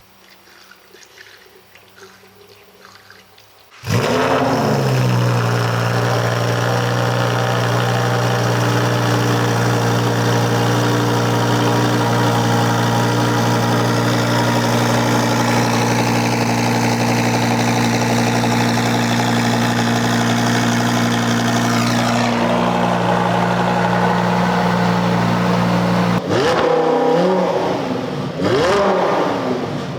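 Supercharged Lamborghini Huracán V10 starting up about four seconds in with a quick flare of revs, then running at a steady fast idle. Near the end the engine note changes and the revs rise and fall in short blips.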